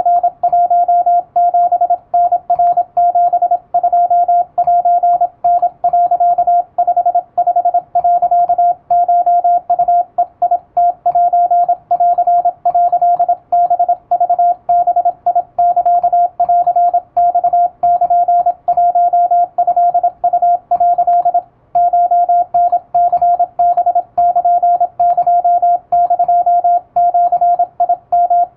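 Morse code tone of about 700 Hz keyed rapidly in dots and dashes by an electronic keyer, sending Japanese wabun telegram text at high speed, with one brief pause about 21 seconds in.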